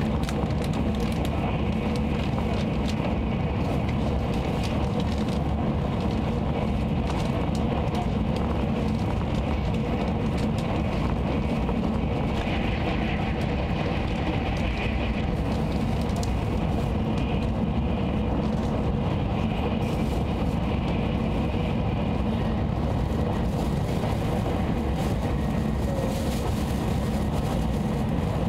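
Steady running noise inside a Nozomi Shinkansen carriage at high speed: a low rumble with hiss on top. About halfway through the hiss briefly brightens as another Shinkansen passes close by on the next track.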